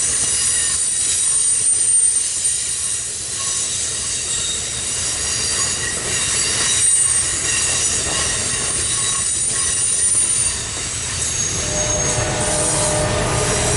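Train rolling past on the main line, its wheels squealing with high thin tones over a steady rumble of cars on rail. A lower tone joins near the end.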